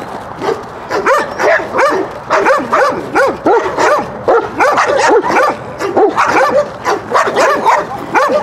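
Young East European Shepherd barking at a helper in a padded bite suit, rapid barks about two or three a second: a guard-training bark at a stranger.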